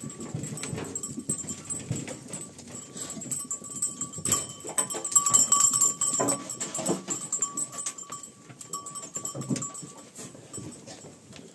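A herd of goats crowding and feeding at a wooden trough: rustling fodder, scuffing and frequent knocks of heads and hooves against the wood, busiest about halfway through.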